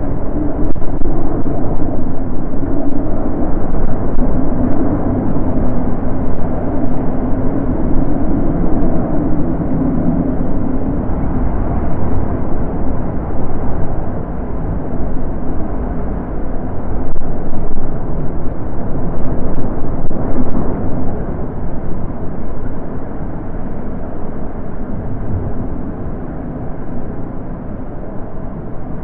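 Heavy rain falling in a dense, steady, low-weighted roar, easing off a little in the last third.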